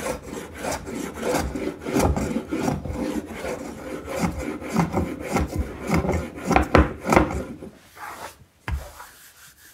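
Hand plane shaving a wooden tabletop edge in quick, short scraping strokes, about two a second, trimming off a small overhang; the strokes stop about eight seconds in, followed by a single click.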